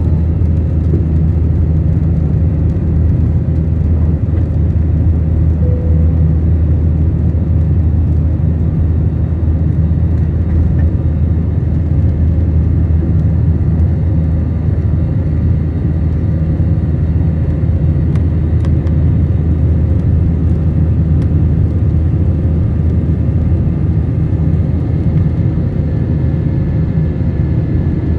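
Airbus A320-family airliner's jet engines at takeoff power, heard from inside the cabin over the wing: a loud, steady low rumble through the takeoff and climb-out.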